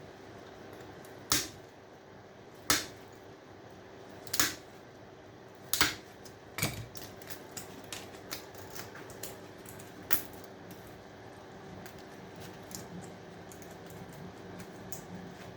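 Hand cutters snapping through electronic scrap: five loud, sharp snaps about a second and a half apart, then lighter clicks and taps as the pieces are handled, over a faint steady hum.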